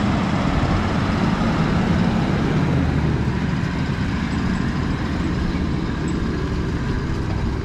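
Toyota Landcruiser 70 series engine running steadily as it tows a camper trailer slowly along a rough dirt track.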